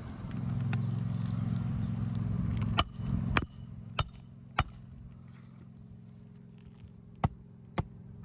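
Hammer driving roofing nails into asphalt shingles: four sharp, ringing strikes about half a second apart a little under three seconds in, then two more near the end, over a steady low hum.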